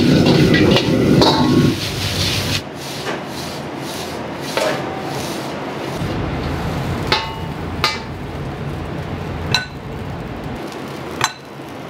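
Busy wok cooking: a loud dense frying noise for the first couple of seconds, then a steadier, quieter hiss broken by about five sharp metal clinks with a short ring, a second or two apart, like a steel ladle knocking against the wok.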